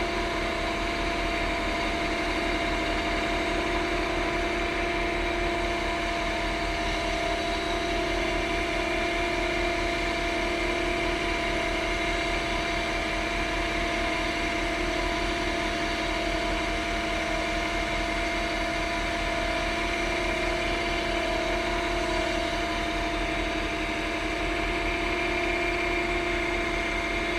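Lathe running steadily at about 2400 rpm, its motor and spindle giving an even hum with a few held tones that do not change.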